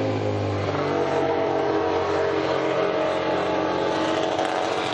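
MotoGP racing motorcycle engine running with a steady, even pitch.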